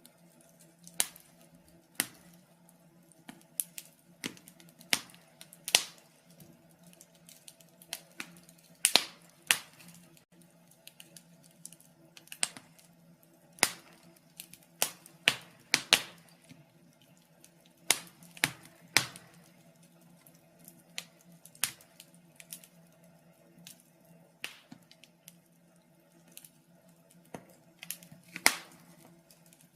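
Wood fire crackling in a fireplace: irregular sharp pops and snaps, a few much louder than the rest, over a faint steady low hum.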